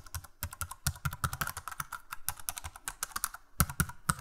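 Computer keyboard typing: a quick, uneven run of keystroke clicks, several a second, with a brief pause about three and a half seconds in.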